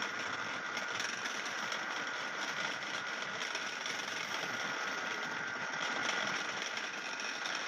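Wood-turning lathe running steadily, with a constant high whine over its motor noise.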